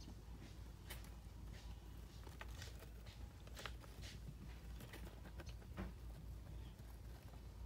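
A small white mouse scurrying over loose chip bedding in a plastic tub: faint, scattered rustles and small clicks, over a low steady hum.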